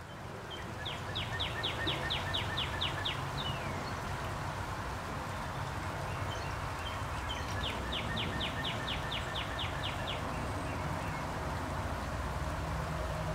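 A songbird singing two phrases, each about a dozen quick, evenly repeated down-slurred notes at about four a second, over a steady low outdoor rumble. A low hum comes in near the end.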